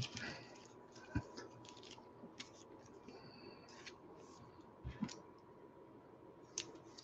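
Faint handling of a trading card being slid into a plastic penny sleeve and top loader: a few soft taps and scrapes, with one longer sliding scrape in the middle.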